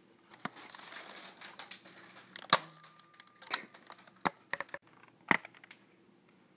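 Rustling with a handful of sharp knocks and clicks, the loudest about two and a half seconds in, followed by a brief ringing tone.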